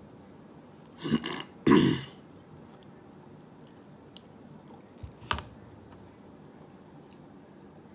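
A man clearing his throat twice in quick succession, loudly, about a second in. A single shorter, sharper sound follows past the middle, then faint clicks as he eats from a spoon.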